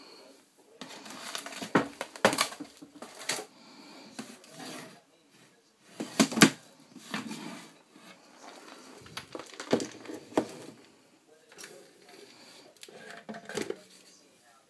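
Irregular knocks, clicks and clatter of containers and cupboard contents being handled in a kitchen cupboard, the loudest knock about six seconds in.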